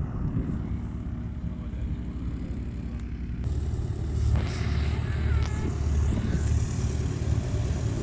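Light propeller aircraft engine droning as a plane climbs away after takeoff. After an abrupt cut about three seconds in, a louder, lower engine rumble follows.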